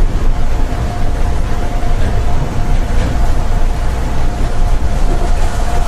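Seibu 8500 series 'Leo Liner' rubber-tyred AGT car running along its concrete guideway, heard from inside at the front: a steady rumble of tyres and running gear with a steady whine over it.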